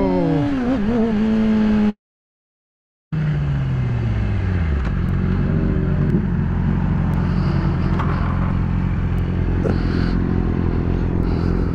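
Sportbike engine heard from the rider's helmet camera, its note bending and dropping as the bike slows, with wind and road noise. The sound cuts out for about a second about two seconds in. The engine then comes back with its pitch falling steeply, and it settles into a steady run.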